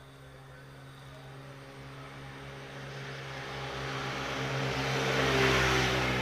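A vehicle passing close by. Its noise builds steadily, is loudest near the end, then begins to fade, over a steady low hum.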